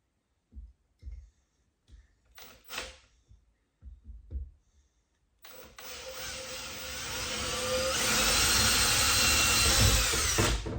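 Power drill boring a hole through a kitchen cabinet door. The motor starts about halfway through, gets louder as the bit bears down and cuts off at the end. Before it come a few light knocks of the drill and handle being positioned.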